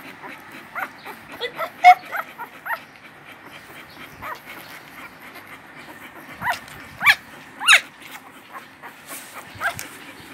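Newborn puppies squeaking and whimpering: short high cries, a cluster in the first few seconds and the loudest ones about seven to eight seconds in.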